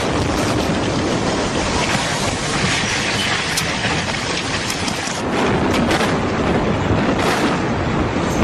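Loud, steady rushing noise with scattered crackles, swelling a little about five seconds in.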